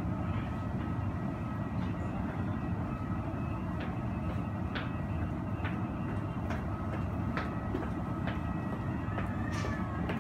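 Airport ambience heard from inside the terminal through the glass: a steady low rumble with a faint high whine and scattered light clicks.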